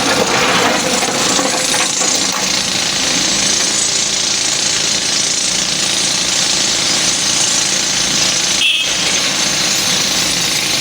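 LiuGong hydraulic excavator working, its diesel engine running under load with a steady, dense rattling clatter.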